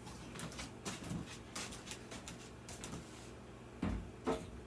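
Scattered light knocks and clicks from handling plastic refrigerator vegetable drawers, with a heavier thump and a second knock near the end.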